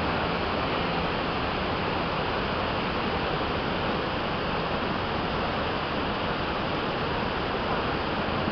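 Steady, even rushing of Niagara Falls' water pouring into the gorge.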